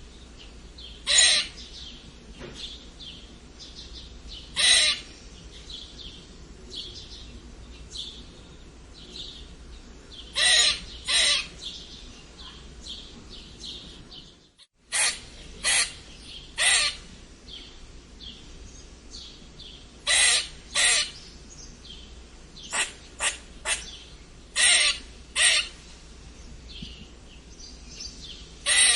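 Squirrel squeaking: loud, short, high calls every few seconds, often in quick pairs or threes, over softer chirping. The sound cuts out for a moment about halfway through.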